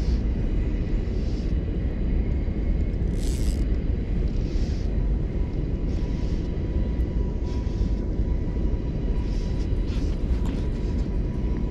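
Steady low rumble of wind buffeting the microphone outdoors, with short soft swishes every second or two, the strongest about three seconds in.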